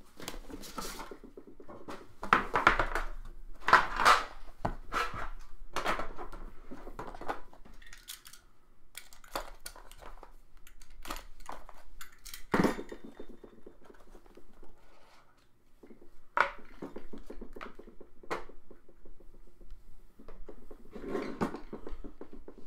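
A 2017 Panini Immaculate Football trading-card box being opened by hand: sliding and scraping as the yellow box parts are pulled apart, rustling, and scattered clicks and knocks, the sharpest about twelve seconds in.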